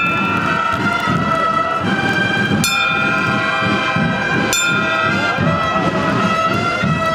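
Procession band music with brass holding sustained notes. Two sharp clicks come about two and a half and four and a half seconds in.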